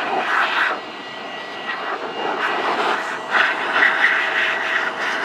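XPOWER A-2 Airrow Pro electric air duster running: a steady motor whine over a rush of air as it blows dust out of a computer case. The rush drops about a second in and swells back up a little after three seconds.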